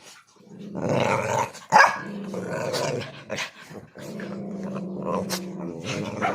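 Dog growling in two long spells, with one sharp bark a little under two seconds in.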